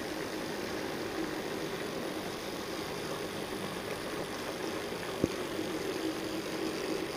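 Z scale model train running past: a steady whir from the small electric motors of several diesel locomotives and their wheels on the track, with one sharp click about five seconds in.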